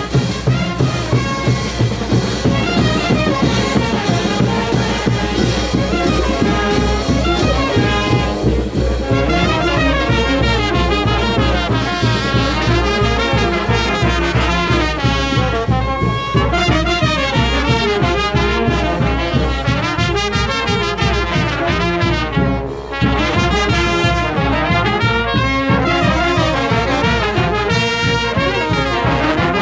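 Marching brass band playing a tune: trumpets, trombones and sousaphones sounding together in full over a steady beat.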